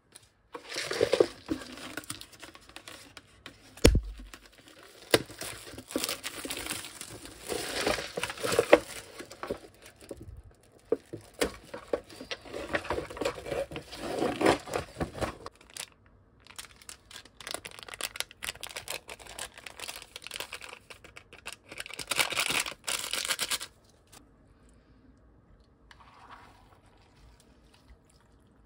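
Plastic wrapping on a cup ramen crinkling and tearing as it is unwrapped, the paper lid torn off and the seasoning sachets pulled out, in repeated handling bursts. There is a single sharp thump about 4 s in.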